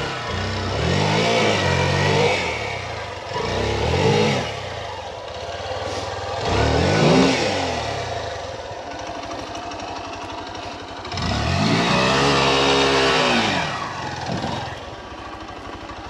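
Hero Xpulse 200 single-cylinder four-stroke dirt bike engine revved in several bursts, each rising and falling in pitch, the longest lasting about three seconds near the end, dropping back to a low steady idle between them.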